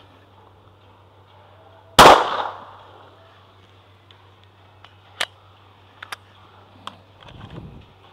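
A single semi-automatic pistol shot about two seconds in, sharp and very loud, with a short echo trailing off. A few faint clicks follow later.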